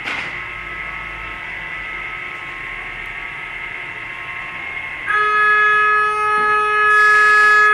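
Food metal detector and its conveyor running with a steady hum, then about five seconds in the detector's alarm comes on: a loud, steady electronic tone that holds and grows louder near the end. The alarm is the detector flagging metal in the packet that has just passed through the aperture.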